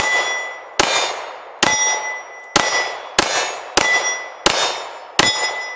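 CZ P10C pistol fired about eight times at a steady pace, each shot followed by the ring of steel targets being hit, fading in under a second.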